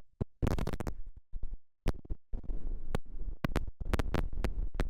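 Irregular scratchy crackling and clicking, several a second, from something rubbing and knocking against the microphone.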